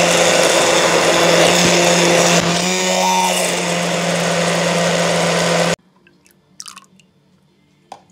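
Electric immersion (stick) blender running steadily, puréeing melon chunks into a frothy liquid. It cuts off abruptly about six seconds in, leaving only a few faint clicks.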